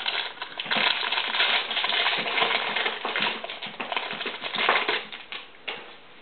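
A foil trading-card pack wrapper being torn open and crinkled, with the cards handled. It is a dense, irregular crackling for about five seconds, then only a few light clicks near the end.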